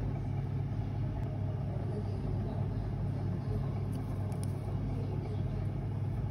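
Steady low machine hum with a rumble, unchanging throughout, with a few faint light ticks over it.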